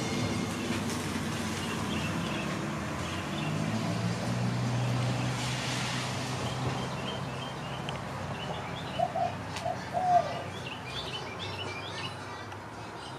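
Outdoor birdsong: small birds chirping, with a dove giving three short coos a little after the middle, over a low hum for a few seconds in the middle.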